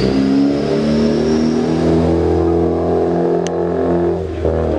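A car's engine and exhaust run at a steady droning pitch as the car pulls away under throttle. The note breaks off and changes about four seconds in.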